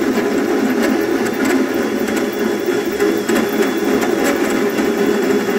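Power drill running a hole saw through a narrowboat's steel hull side, a loud, steady grinding as the saw cuts the hole for the bilge pump's skin fitting.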